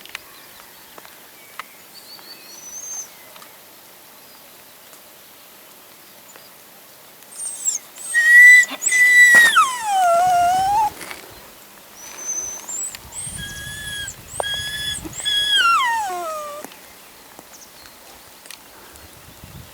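Dog whining in high, drawn-out calls that fall in pitch: one long whine about eight seconds in, then a string of shorter ones a few seconds later.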